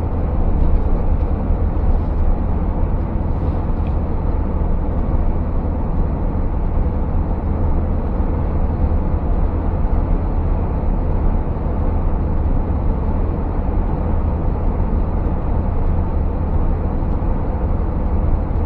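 Steady, even drone inside the cab of a Scania S650 truck cruising on the motorway: the deep rumble of its V8 engine mixed with tyre and road noise.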